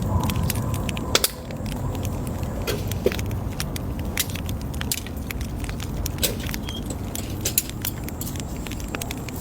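Campfire crackling: irregular sharp pops and clicks, a few louder snaps about a second in, over a steady low rumble.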